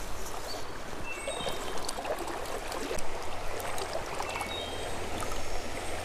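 Shallow creek water running and trickling steadily.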